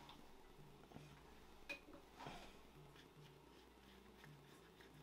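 Near silence: room tone with a low hum and a couple of faint clicks about two seconds in.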